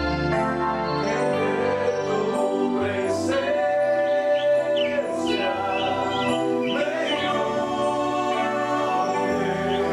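A small group of men singing a worship song together in harmony, accompanied by an electronic keyboard.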